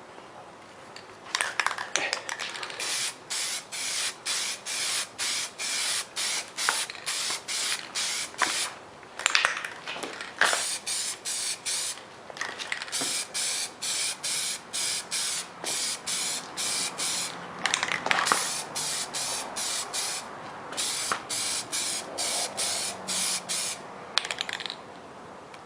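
Aerosol spray can of PlastiDip Glossifier spraying in many short hissing bursts, about two a second, with a few brief pauses, laying a gloss coat over a black PlastiDip coating.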